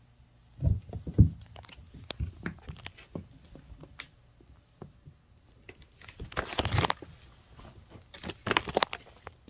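Two kittens play-fighting on a hardwood floor: a few thumps and scuffles of bodies and paws about a second in, scattered light taps and clicks, then two longer rustling scuffles in the second half.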